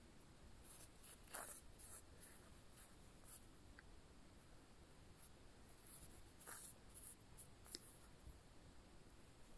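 Near silence with a few faint, brief scratchy rustles: a needle and yarn being drawn through crocheted fabric while hand-sewing a backstitch.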